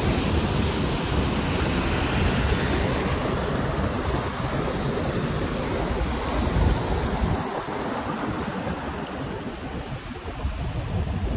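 A waterfall's rushing water as a steady noise, with wind buffeting the microphone in gusts that ease briefly past the middle.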